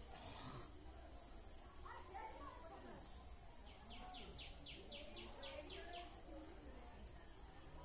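Steady, high-pitched insect chorus drone, with a quick run of about nine short falling chirps about four seconds in.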